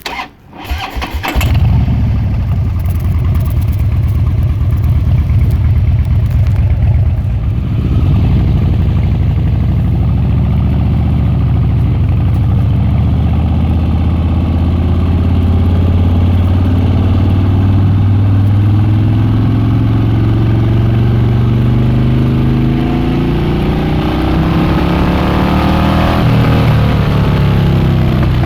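Harley-Davidson Dyna Switchback V-twin engine starting with a brief crank and catching about a second and a half in, then running loud through its exhaust. Its pitch climbs slowly as it accelerates and dips near the end.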